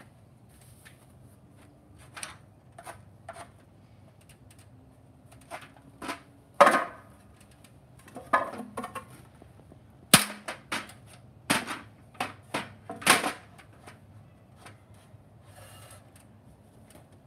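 A string of sharp knocks and clacks as a wooden board and hand tools are handled on an aluminium work stand, about a dozen in all, the loudest about 7, 10 and 13 seconds in.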